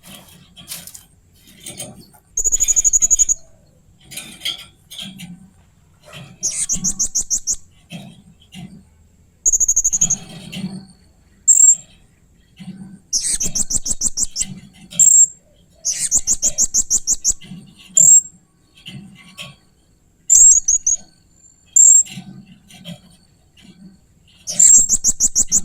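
Blue-crowned hanging parrot (serindit) giving repeated high-pitched rattling trills of rapid pulses, each lasting about a second, with short sharp chirps in between.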